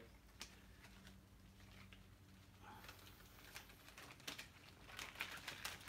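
Near silence: room tone with a faint steady hum and a few scattered light clicks and handling noises.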